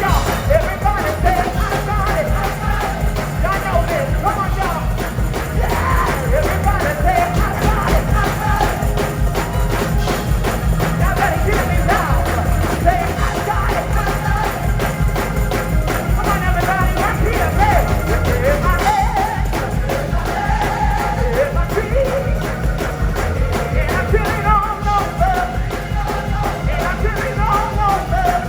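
Gospel choir singing over a live band, with drums and bass keeping a steady beat.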